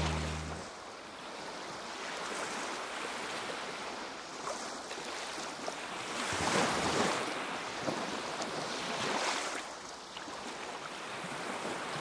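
Sea waves washing on a rocky shore: a steady rush of surf with two louder surges, about six and nine seconds in.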